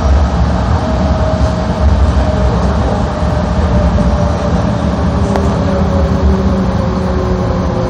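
Busan Metro Line 4 rubber-tyred light metro train running through a tunnel, heard from inside the car: a steady low rumble with a motor whine that falls gently in pitch over the second half as the train begins slowing for the next station.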